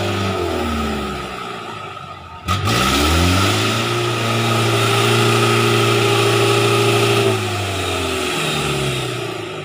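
Off-road 4x4's engine revving hard under load as it climbs a muddy trail, wheels spinning and throwing mud. The revs sag about two seconds in, jump back up half a second later and hold high for several seconds, then ease off near the end.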